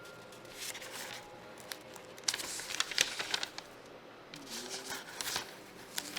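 Pages of an old book being turned and handled, with irregular paper rustling and soft clicks.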